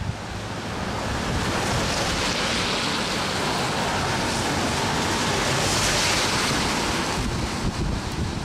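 Steady rushing hiss of rain, swelling through the middle and easing near the end, over a low rumble of wind on the microphone.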